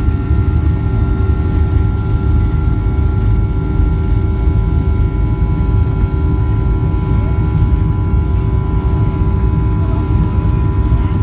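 Jet airliner engines at takeoff power, heard from inside the cabin: a loud, steady rumble with a constant engine whine over it.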